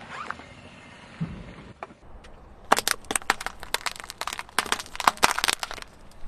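Car tyre rolling over a row of small plastic tubs, the tubs and lids cracking and snapping under its weight in a quick run of sharp crackles for about three seconds.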